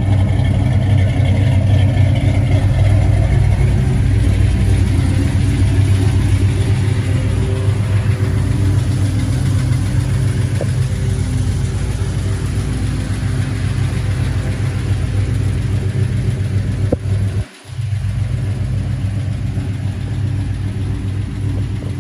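1970 Dodge Coronet Super Bee tribute's engine idling steadily, with a deep exhaust note. Late on, the sound drops out for a split second.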